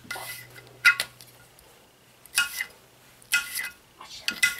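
Kitchen knife chopping through a potato onto a glass cutting board: about five sharp clicks, roughly a second apart.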